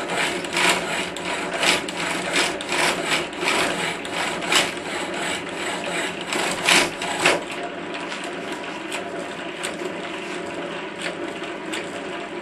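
Belt-driven power hacksaw running, its blade sawing back and forth through steel stock with a rasping stroke about every 0.7 seconds. The strokes grow lighter about halfway through.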